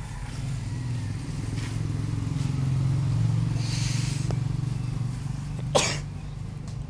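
Small single-cylinder petrol engine running steadily, driving a rice thresher with a shaking sieve. One sharp knock a little before the end.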